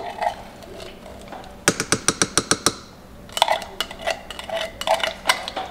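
A spoon tapping and scraping on a metal can as canned pumpkin is scooped out and knocked into stainless steel bowls. A rapid run of sharp clicks comes about two seconds in, followed by a looser string of knocks.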